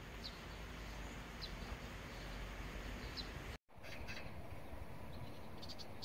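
Outdoor ambience: a steady low rumble and hiss with short, high bird chirps every second or so. The sound drops out for an instant a little past halfway, and a quick cluster of chirps comes near the end.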